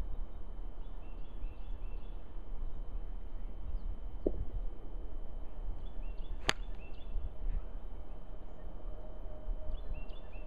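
A single sharp click of a golf wedge striking a ball off snow, a little past the middle, over a steady low rumble of wind on the microphone. Faint high chirps come and go.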